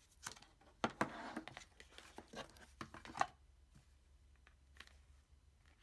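Cardboard phone box and its packaging being handled: scattered taps and clicks with a brief rustle about a second in, dying down in the second half.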